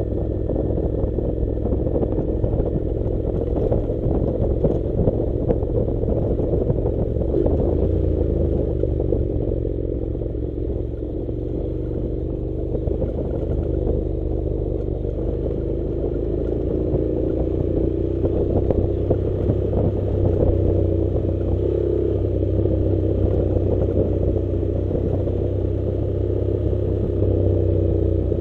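Honda NC700 parallel-twin engine running steadily as the motorcycle rides a gravel dirt road, its pitch rising and falling gently a few times. Loose stones and the rough surface add a constant clatter and rattle.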